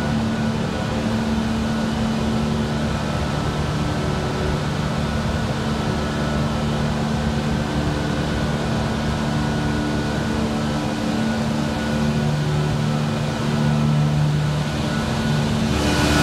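Steady hum and fan noise of running VACON NXP variable-frequency drive cabinets: cooling fans over an even rush, with several steady tones from the drive electronics.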